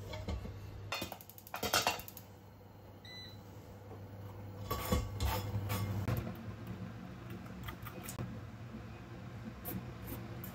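Clinks and knocks of a metal pan lid and a frying pan being handled on a gas hob, with a steady low hum underneath that stops about six seconds in.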